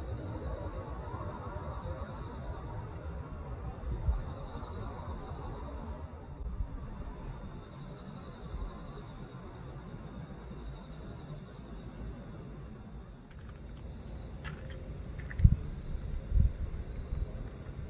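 Crickets and other night insects chirping steadily in several high continuous trills, with bursts of fast pulsed chirps now and then. A low rumble runs underneath, and two dull thumps come near the end.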